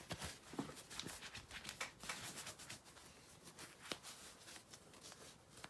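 Faint, scattered clicks and light taps of small metal parts and tools being handled on a desk during a paintball regulator teardown.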